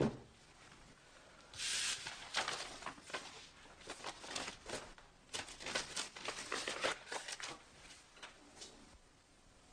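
A thump at the very start, then a run of irregular rustling, crinkling and clicking noises for about six seconds, like things being handled or rummaged through.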